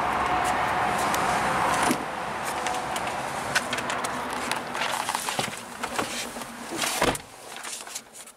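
Outdoor hum, then clicks and rustling as the driver's door of a Chevrolet Malibu is opened and someone climbs into the seat. A sharp thump about seven seconds in as the door shuts, after which the outside noise is muffled inside the cabin.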